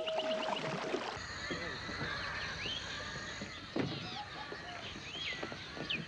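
Kayak paddles dipping and splashing in river water, with many birds calling in short rising-and-falling chirps. Background music cuts off about a second in.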